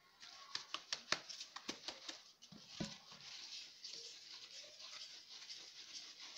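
A hand rubbing a flour and ground-sesame mixture through a wooden-framed sieve (ghorbal): a soft, scratchy hiss of grains on the mesh. It is broken by a string of sharp clicks in the first few seconds.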